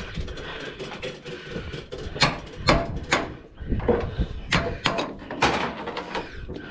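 Tie-down chains and binders being handled on a flatbed trailer deck: a series of sharp metal clanks and rattles, several separate knocks from about two seconds in, as the load's securing chains are taken off.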